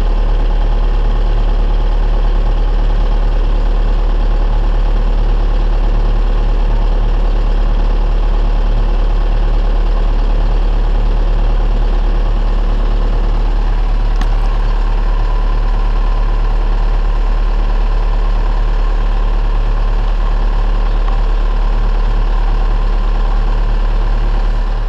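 Heavy diesel engine of harvest machinery running steadily with a strong, even low hum, with one faint click about halfway through.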